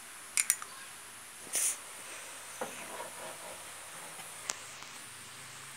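Handling noises while Play-Doh slime is being mixed: two quick sharp clicks, a short hissing squish about a second and a half in, then a few softer taps, over a steady faint hiss.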